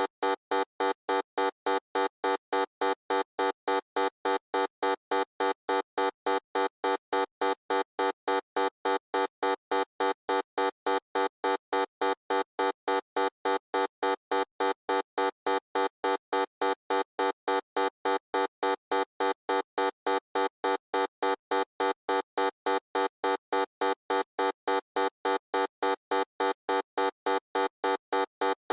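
Loud electronic buzzer beeping in short, evenly spaced pulses, about three a second, with an unchanging harsh pitch.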